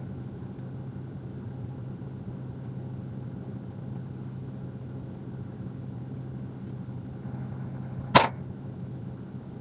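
Steady low room hum, with one sharp, loud snap about eight seconds in.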